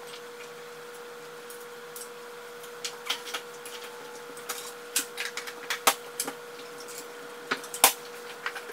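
Scattered light clicks and knocks of things being handled and set down while unpacking, about a dozen, the loudest near the end, over a steady faint hum.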